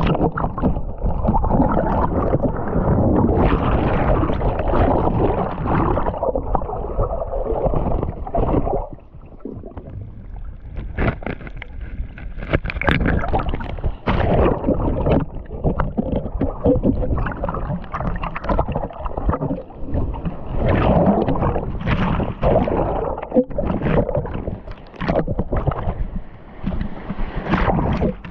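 Kayak paddles splashing and water sloshing against the kayak as it is paddled, with irregular strokes; it goes quieter for a few seconds about a third of the way in.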